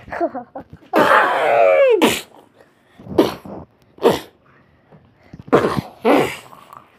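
A voice making non-word vocal sound effects: one long cry falling in pitch about a second in, then several short, sharp cries.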